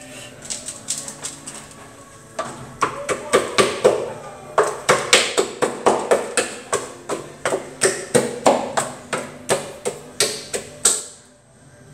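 Wooden paddle beating and stirring thick funge (cassava flour dough) in a metal pot, knocking against the pot about three times a second. The knocks are light at first and loud from about two and a half seconds in, then stop shortly before the end.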